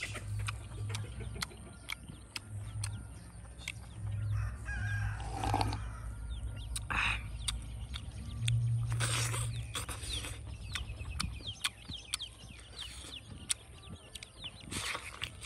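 Frequent sharp clicks and crackles, with an animal call falling in pitch about five seconds in.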